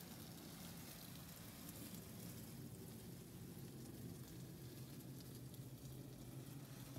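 Faint steady low hum with a light hiss inside a parked car's cabin.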